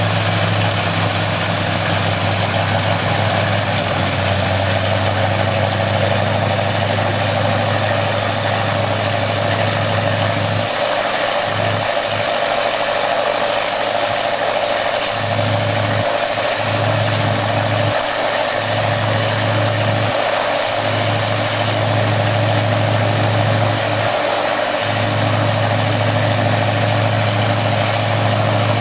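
Piston aero engine running steadily at idle. A strong low hum in its sound drops out briefly several times in the middle stretch.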